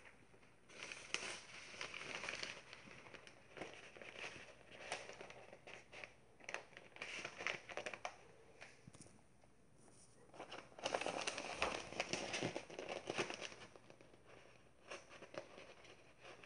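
Sheets of newspaper rustling and crinkling as they are handled and folded, in irregular bursts, loudest for a couple of seconds a little past the middle.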